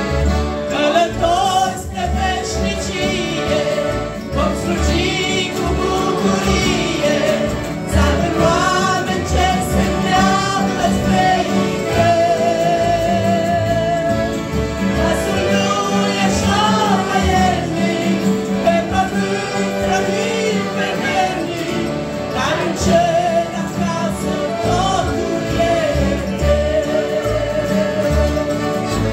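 A group of women and children singing a Christian hymn together, accompanied by two piano accordions and an acoustic guitar, with a steady pulsing bass under the voices.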